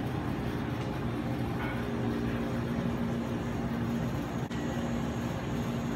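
Steady indoor background hum of an airport lounge, with a low steady drone running under it from about a second in.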